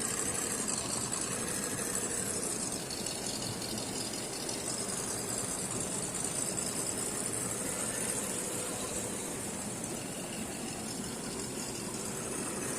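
1:10 RGT EX86010-CJ RC rock crawler with a Jeep Rubicon hard body driving, its electric motor and gearbox giving a steady high whine.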